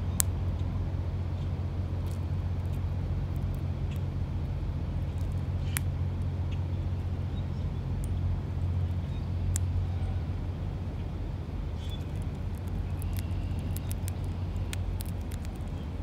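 Steady low background rumble with scattered sharp clicks from a female northern cardinal pecking and cracking seed close to the microphone.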